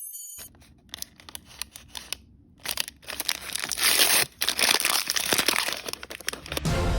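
Blind bag's plastic packaging being crinkled and torn open: a few scattered crackles at first, then about four seconds of loud tearing and rustling.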